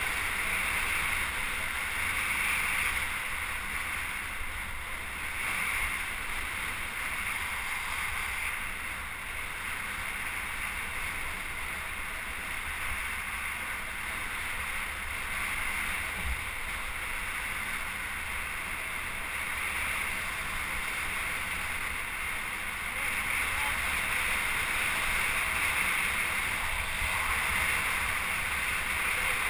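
Steady rushing noise of wind buffeting the microphone while on the move, with no distinct events.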